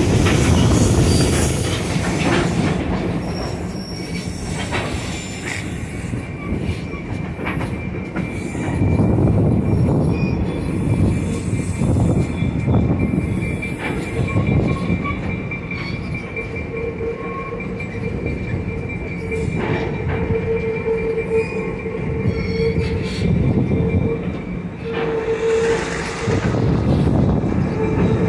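Passenger train rolling along the rails, with a steady rumble and clatter. A steady squeal sets in a few seconds in, and a second, lower squeal joins past the middle; both are typical of wheels squealing on curved track.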